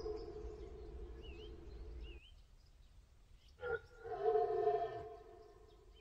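Red deer stag roaring in the rut. The end of one roar fades out over the first two seconds, with two faint high chirps over it. After a short silence comes a brief grunt, then one more roar about four seconds in, lasting about a second.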